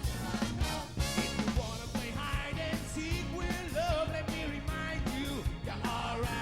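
Live soul band playing, with drum kit, bass and a lead voice or horn line over it.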